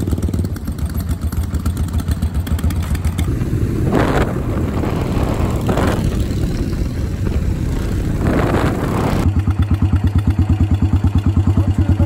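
Custom Yamaha SR400/SR500 single-cylinder motorcycles riding off, the engine note swelling three times as they pull away and accelerate. Near the end it changes to an even, regular beat of a single idling.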